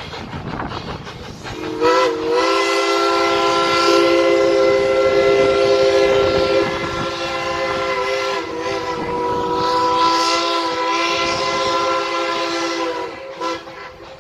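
Steam locomotive's whistle blowing one long blast of several notes sounding together, about eleven seconds long, then a short toot near the end.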